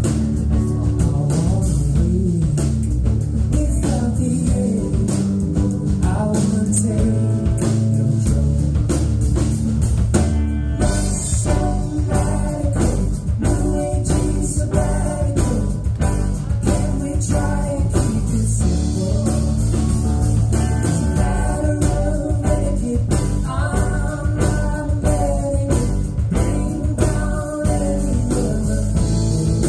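Live band performing: a lead singer over electric guitar, drum kit and keyboards.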